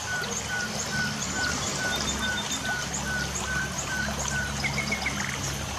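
Light rain falling in a steady hiss while birds chirp, repeating short, evenly spaced notes about two or three times a second, with a quick trill near the end. Low held tones sit beneath.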